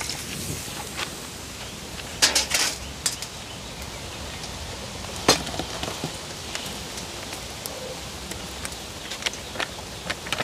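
A steady faint outdoor hiss with a few sharp clicks and rattles of handling: a short cluster about two seconds in, a single click near the middle and small ticks near the end.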